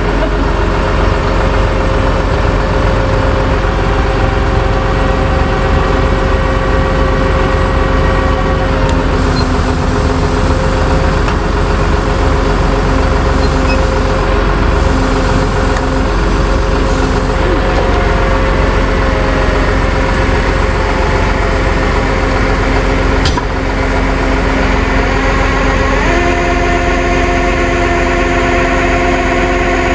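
Tow truck engine running steadily, its tone shifting slightly higher about 26 seconds in, with a single sharp click a little before that.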